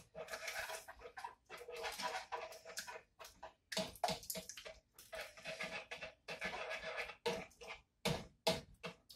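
Wire whisk scraping and clattering around a saucepan of thick cheese sauce, in many short, irregular strokes.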